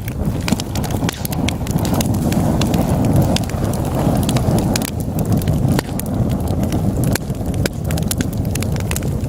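Wood logs burning in a fireplace: a steady low rumble of flames with frequent, irregular sharp crackles and pops throughout.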